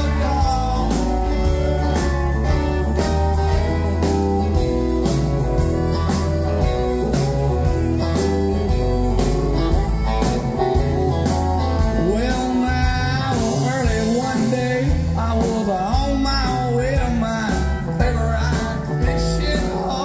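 Live country band playing: a man singing over electric guitar, pedal steel guitar and drums, with a steady beat and heavy low end.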